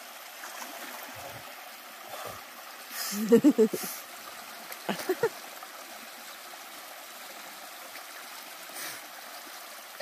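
Creek water trickling steadily into a rock pool. About three seconds in, water sloshes and a man lets out several sharp gasps as he lowers himself into the cold water, with another short gasp or two a second later.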